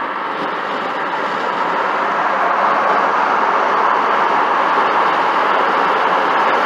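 Steady road and tyre noise heard inside a car cabin at highway speed, growing a little louder as the car runs alongside a tractor-trailer tanker.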